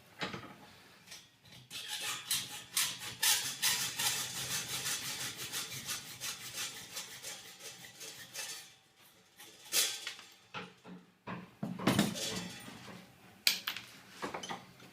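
Hacksaw cutting through thin steel cable tray held in a vise: several seconds of quick, even back-and-forth strokes. The sawing then stops, followed by a few separate knocks as the metal is handled.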